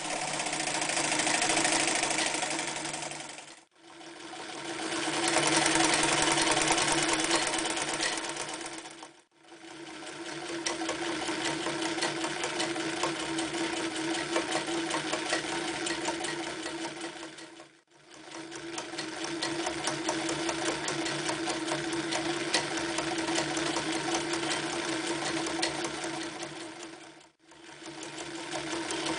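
Singer 316G electric sewing machine running at speed, stitching through layers of denim and then leather: a steady motor hum under the rapid clatter of the needle and feed. The sound drops out briefly four times and starts again.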